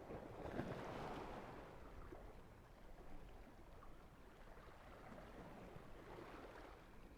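Faint wash of surf on a beach, swelling about a second in and again near the end.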